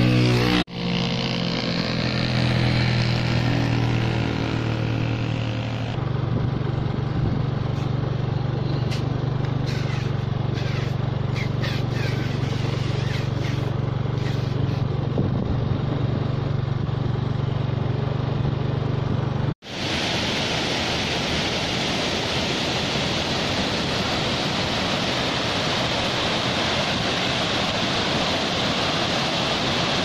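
A vehicle engine running while driving along a road, its pitch shifting during the first few seconds and then holding steady. About twenty seconds in it cuts off abruptly to the steady rushing of a waterfall.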